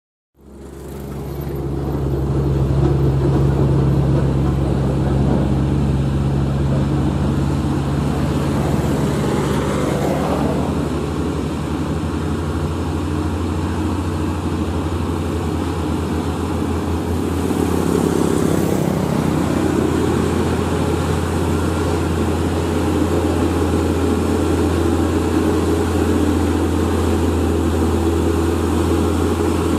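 Diesel engine of a loaded Hino 500-series tractor-trailer pulling slowly under load, a steady low drone that swells in over the first couple of seconds.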